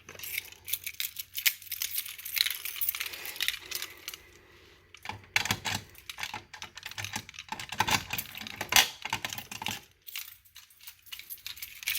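Irregular clicks, knocks and rattles of a fire alarm pull station being handled.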